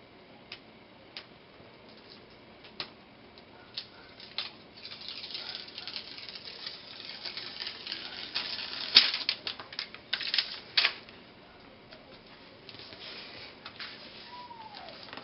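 Backing strip being peeled off Rhino Grip double-sided adhesive tape stuck to the floor: scattered light ticks, then several seconds of crackling and tearing with a few sharp snaps near the middle, settling back to faint ticks.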